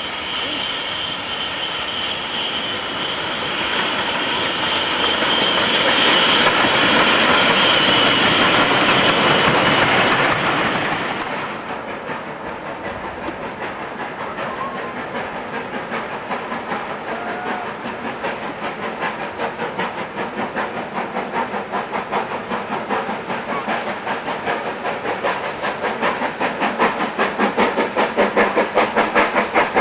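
Steam locomotive drawing close with a loud, steady hiss that builds and then cuts off abruptly about eleven seconds in. After that, a steam locomotive's exhaust chuffs in a fast, even rhythm, growing louder as it approaches.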